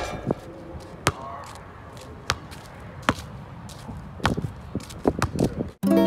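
Basketball bouncing on a concrete court: single sharp bounces about a second apart, then a quicker run of dribbles about four seconds in. Acoustic guitar music comes in right at the end.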